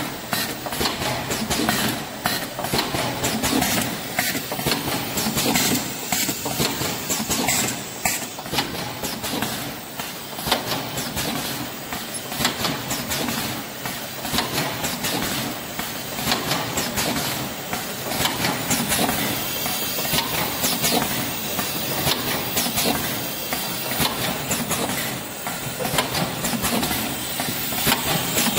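Vertical stick-bag packaging machine running: a steady mechanical clatter with frequent sharp clicks and clacks from its moving sealing and cutting parts.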